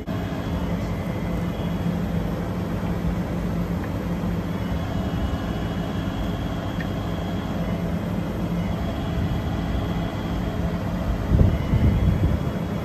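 Refrigeration vacuum pump running steadily with a low hum, pulling a vacuum on the VRV system. A few louder low knocks near the end.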